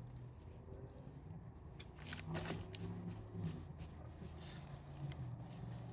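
Woven landscape fabric rustling and scuffing as it is handled and pushed down into a hole, with a few short scrapes, the clearest about two seconds in.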